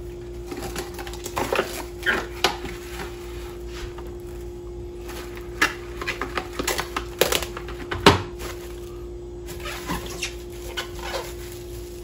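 Plastic cling wrap pulled off the roll, torn on the box's cutter and crinkled as it is stretched over a stainless steel mixing bowl: scattered crackles and clicks, the loudest a sharp crack about eight seconds in. A steady hum runs underneath.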